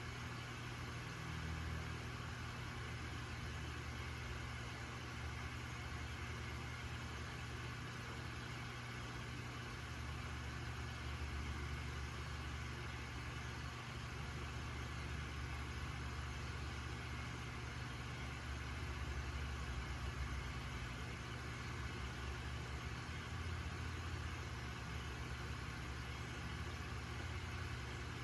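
Steady low hum of an aquarium pump, with a fainter even hiss over it.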